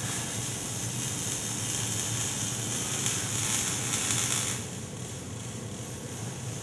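Robotic arc welder crackling and hissing steadily as it welds the steel tube frame, over a low machine hum. The hiss drops away about four and a half seconds in.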